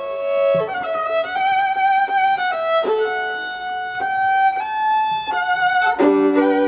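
Violin playing a slow fiddle-tune melody of held notes with vibrato, moving from note to note about every half second; a fuller chord sounds about six seconds in.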